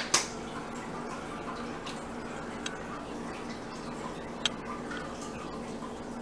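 Faint small clicks and ticks from a plastic squeeze bottle of Dijon mustard being squeezed out over pastry, over a low steady hum, with one sharper click about four and a half seconds in.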